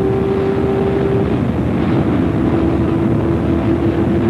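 Porsche 936's turbocharged flat-six running hard, heard from inside the cockpit over wind and road noise. Its steady note drops a step in pitch about a second in, then holds.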